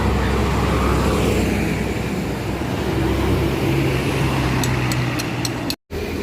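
Heavy road vehicle's engine running close by, a steady low hum with a held engine tone in the middle of the stretch. The sound cuts out for an instant near the end.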